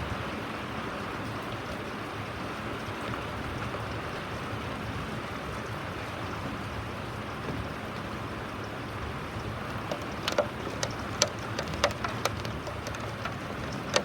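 Steady rain falling. About two-thirds of the way through, several sharp, louder taps of drops hit close by.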